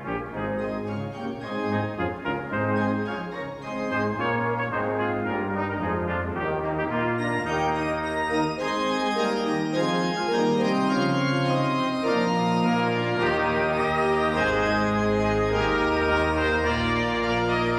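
Brass ensemble and pipe organ playing together in full, sustained chords. The organ's deep bass notes come in strongly about fourteen seconds in.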